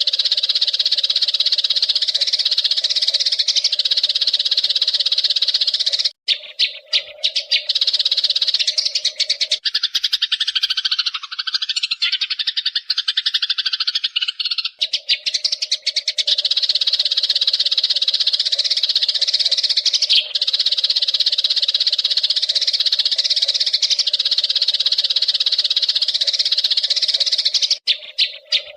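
Eurasian tree sparrows giving a dense, continuous chatter of rapid high chirps. Between about six and sixteen seconds the chatter thins, and a lower call that rises and falls in pitch takes over before the chatter returns.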